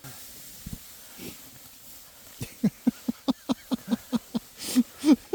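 A person laughing in quick, even, short bursts, starting about halfway in.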